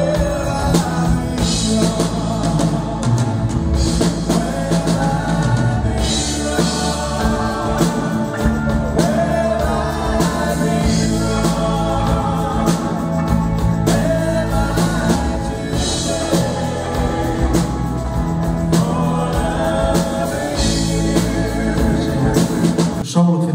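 Live pop-rock band playing a song: a man singing lead over acoustic guitars, drums and keyboard. The song comes to its end near the end.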